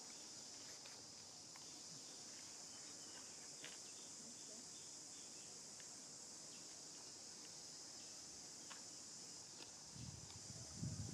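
Faint, steady high-pitched drone of insects chirring in the trees, with a few scattered faint ticks. A low rumble comes in near the end.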